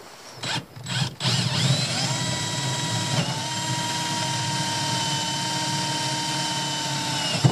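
Cordless drill boring a hole through the fibreglass deck of a boat into the wood reinforcement beneath. After a couple of short trigger blips, the motor runs steadily for about six seconds with a whine that dips slightly in pitch about three seconds in, then stops.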